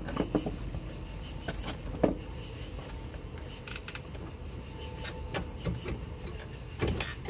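Scattered metallic clicks and knocks of parts on a jet boat's pump being handled and wiggled by hand, the loudest a sharp knock about two seconds in and a few more near the end.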